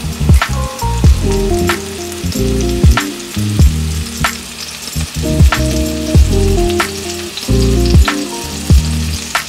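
Oyster mushrooms and sliced garlic sizzling in oil in a stainless steel pan, under louder background music with a steady beat.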